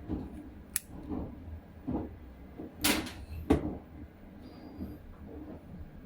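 A few sharp clicks and knocks, the two loudest close together about three seconds in, with softer bumps between them over a low steady hum.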